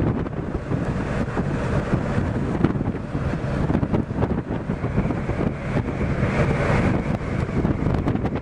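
Wind buffeting the microphone on the open deck of a moving ship, a gusty low rumble that grows stronger a little past the middle.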